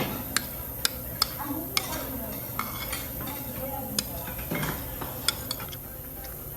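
Metal utensils clinking against cookware or dishes: about ten short, sharp clinks at irregular intervals.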